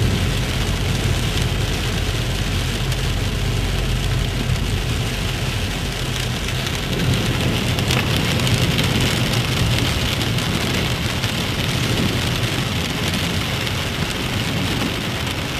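Torrential rain falling on a moving car's roof and windscreen, heard from inside the cabin as a steady, even rush, with the car's low engine and road rumble underneath.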